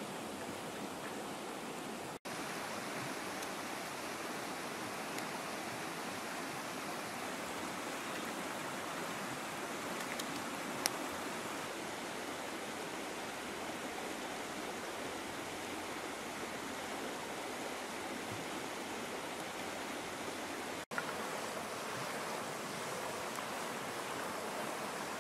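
Steady rush of flowing river water, which cuts out for an instant twice, about two seconds in and near the end, with one faint click near the middle.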